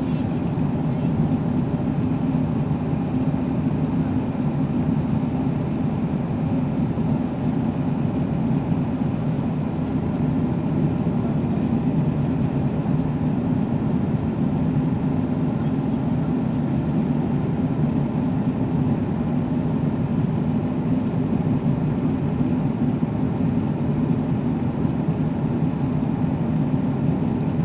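Steady low drone of a Boeing 737-8 MAX airliner in cruise flight, heard inside the passenger cabin: engine and airflow noise that stays even throughout.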